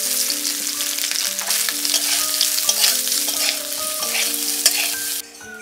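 Squeezed, soaked soya chunks frying in hot oil in a metal kadai, a loud sizzle with crackles and spatula stirring. The sizzle cuts off suddenly near the end.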